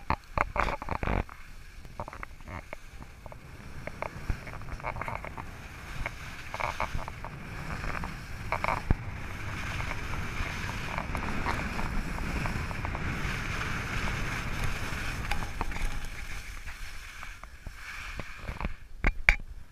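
Skis sliding and carving over snow during a downhill run, with wind rushing over the microphone; a few sharp knocks in the first second and again about a second before the end.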